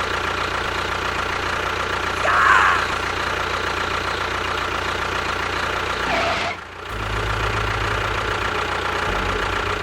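A motor running steadily. It briefly drops out before the seven-second mark and comes back with a deeper hum.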